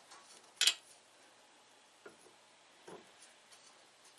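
A sharp metal click about half a second in, then a few faint ticks, from the air gun barrel and drill press chuck being shifted and evened up by hand.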